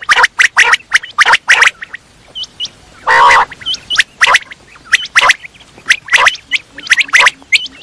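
Common quail calling: quick clusters of short, sharp notes, with one longer raspy call about three seconds in and a few faint small chirps between.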